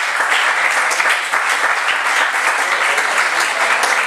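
Audience applauding: dense, steady clapping from a small crowd.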